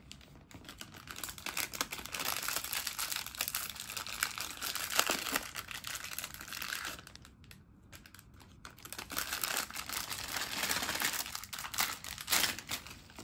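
Thin plastic packaging crinkling and rustling as a small plastic bag is handled and worked open by hand, in two spells with a quieter gap of about two seconds in the middle.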